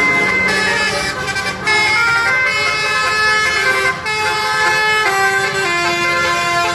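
Basuri telolet horn, a multi-tone musical bus horn, playing a tune: several horn tones sound together and step from note to note every half second or so, with short breaks between phrases.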